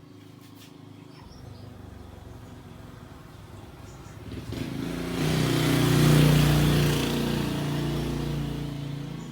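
Two-stroke motorcycle engine running, swelling louder from about four and a half seconds in to a peak near six seconds, then easing off.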